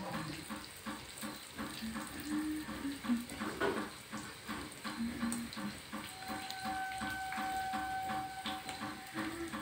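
Oil sizzling in a small tempering pan with garlic, green chillies and curry leaves on a gas stove, under soft background music with a steady beat.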